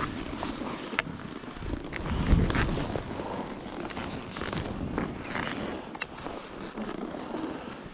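Skis running through deep powder snow with a continuous rushing hiss and rumble, louder in a surge about two seconds in, and a couple of sharp clicks from the skier's gear.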